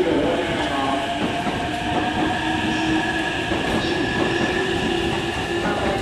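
JR East E531-series electric train pulling out of the platform, its traction motors giving a steady whine of several held tones over the rumble of the wheels on the rails.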